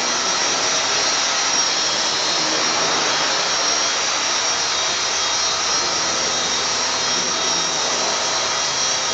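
Blade SR electric RC helicopter in flight: a steady high whine from its electric motor and spinning rotors, with the whirr of its wooden main blades.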